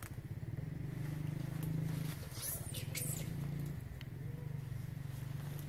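Steady low hum, like a distant engine, under a few brief high-pitched squeaks about two and a half seconds in.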